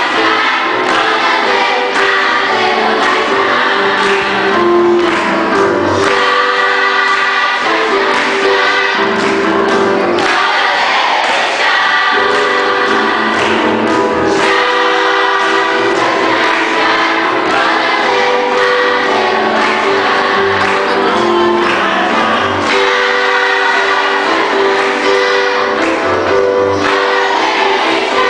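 Youth choir singing together, many voices holding long notes in phrases with short breaks between them.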